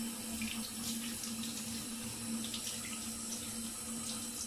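Water from a handheld shower hose running steadily over a nylon-stocking bag of aquarium filter media and splashing into a bathtub as the media is rinsed. A steady low hum sits under the water noise.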